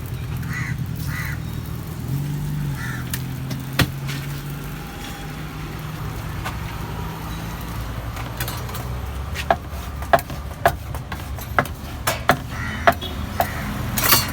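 Steady hum of street traffic and engines, with a run of sharp knocks roughly two a second in the second half.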